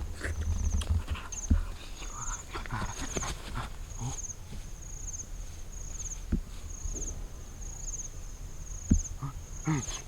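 An insect chirps steadily, giving a short high trill about every three-quarters of a second, with a few dull thumps and knocks of handling or footsteps; the loudest thump comes near the end.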